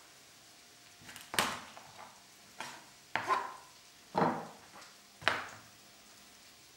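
About five sharp knocks and cracks, spaced roughly a second apart, as a raw whole chicken is jointed with a chef's knife on a plastic cutting board: the knife and the pieces striking the board, and the bones being broken.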